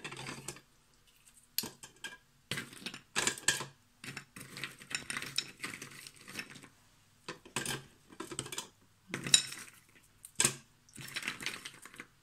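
Ice cubes clattering and clinking inside the clear plastic feed chute of an electric mandoline slicer, with the plastic pusher knocking against it, in a series of short irregular rattles. The motor is not yet running.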